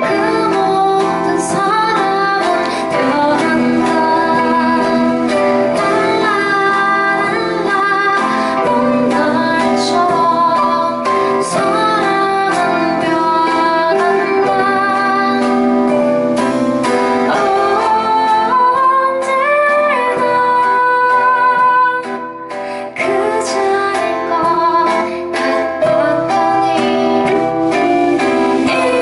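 Live band music: a woman sings the lead over her strummed acoustic guitar, with electric bass, drums and keyboard. The music thins out briefly about three quarters of the way through.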